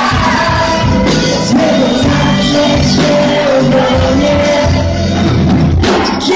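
Live pop band with drums and keyboard playing behind a female lead vocalist who sings a held, gliding melody line. The low end of the band drops out just before the end.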